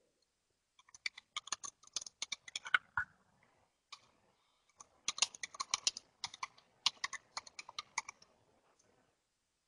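Typing on a computer keyboard: two runs of quick key clicks, the first starting about a second in and lasting some two seconds, the second from about five to eight seconds in.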